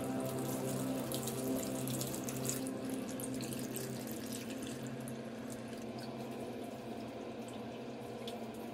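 A stream of water pouring into a pot of raw pork belly and vegetables, splashing and trickling as the pot fills to boil the meat. The splashing is heaviest in the first few seconds and then eases off.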